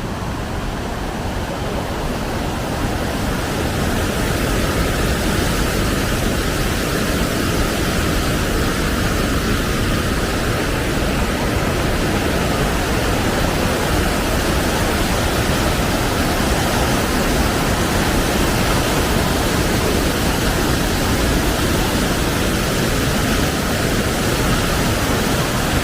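Waterfall: a steady, dense rush of falling water that grows a little louder over the first few seconds, then holds even.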